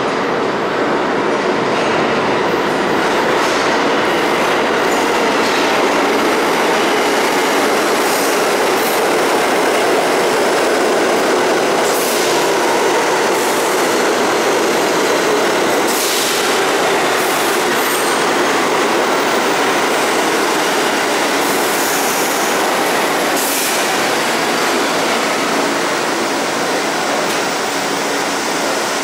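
R68 subway train pulling into an underground station and braking along the platform: a loud, steady rumble of steel wheels on rail, with brief high hisses now and then.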